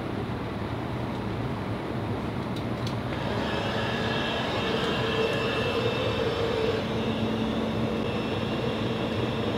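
Steady whirring of shop machinery running, with a hum that comes in about three seconds in and grows stronger near seven seconds.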